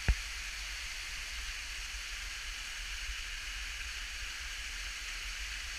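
Steady rushing hiss of a waterfall pouring down a rock face, with a single sharp click just at the start.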